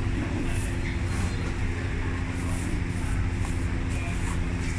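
A motor or engine running with a steady low rumble and a constant hum.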